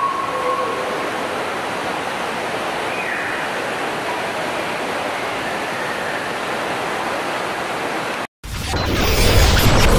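Waterfall rushing as a steady, even roar of falling water. Just past eight seconds it cuts off abruptly, and a different, louder sound swells in near the end.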